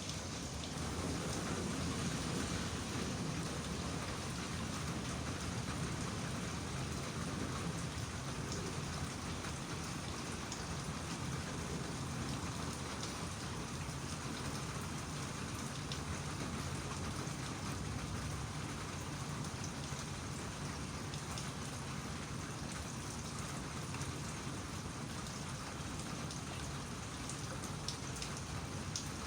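Steady rain falling on a surface, a continuous patter with scattered faint drop ticks.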